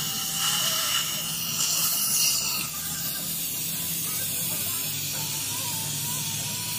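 Dental suction tube hissing steadily as it draws air from the patient's open mouth.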